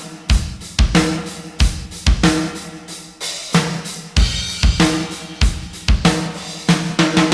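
Rock band playing, led by a drum kit: heavy kick, snare and cymbal hits over sustained low pitched notes.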